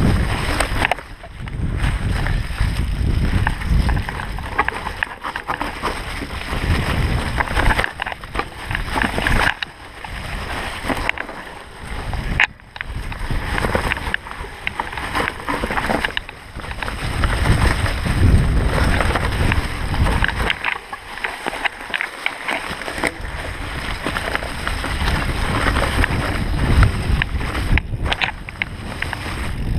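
Mountain bike ridden downhill over a leaf-covered dirt trail: wind rushing over the microphone and tyres rolling through dry leaves, with frequent knocks and rattles from the bike as it hits bumps.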